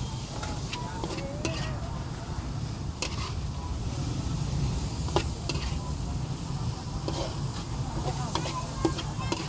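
Green beans stir-frying in a wok: a metal spatula scrapes and clinks against the pan at irregular moments while the food sizzles, over a low steady rumble.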